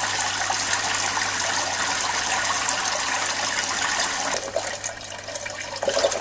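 Water pouring in many streams from the holes of a 3D-printed bubble-head aerator on a PVC pipe and splashing into the fish tank water, the falling streams drawing air in for passive aeration. The steady rush grows quieter after about four seconds.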